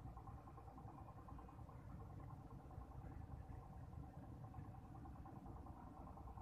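Faint, steady engine running, with a low rumble and an even, finely pulsing hum that does not change.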